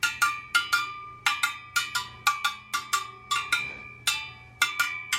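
Steel spokes of a freshly laced motorcycle rear wheel being plucked one after another, about three to four short ringing pings a second, the pitch shifting a little from spoke to spoke. This is a by-ear tension check, and the pings sound to the builder as if the spokes should be tighter.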